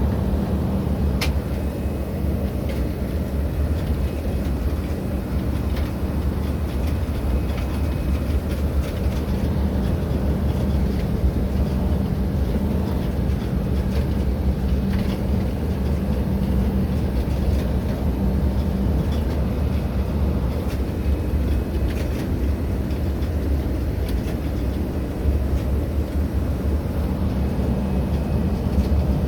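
Steady low rumble of gusty wind buffeting the microphone outdoors, with a few faint clicks.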